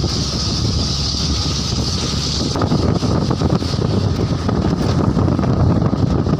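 Steady running noise of a moving vehicle, a low rumble with wind buffeting the microphone. A high hiss stands out over the first few seconds.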